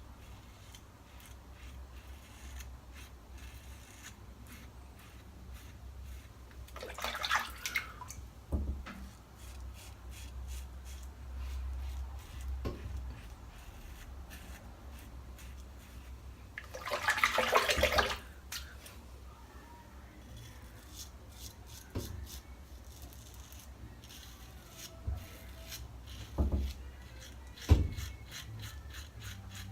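Wet-shaving sounds at a bathroom sink: two short hissing bursts, one about seven seconds in and a longer one about seventeen seconds in, and a few sharp knocks, the loudest near the end, like a razor or brush set down or tapped.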